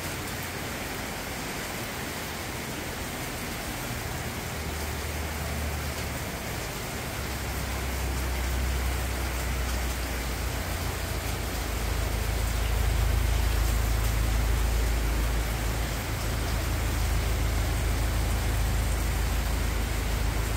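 Heavy tropical-storm rain falling steadily, an even hiss. A low rumble builds from about four seconds in and stays strong through the rest.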